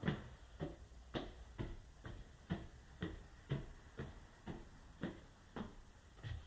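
Footsteps walking across an indoor floor at an even pace of about two steps a second, each a soft knock with a low thud.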